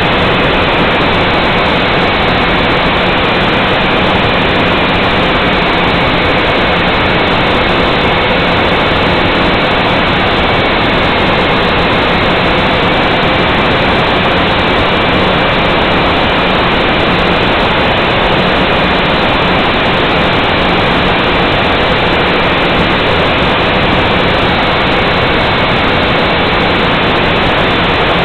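Nine Eagles Galaxy Visitor 3 quadcopter's motors and propellers running in flight, heard through the drone's onboard camera. It is a loud, steady rushing noise with faint whining tones that drift slightly in pitch.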